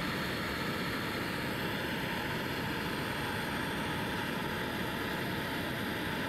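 Gas hand torch clamped in a vise, its flame hissing steadily as it is used to heat a steel leaf spring for hardening.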